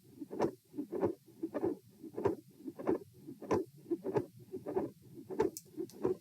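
Heartbeat heard through a stethoscope at chest position E: a steady lub-dub at about 100 beats a minute. The recorder labels these heart sounds as a midsystolic click and murmur with a split second heart sound. A couple of faint scratches of the chest piece come near the end.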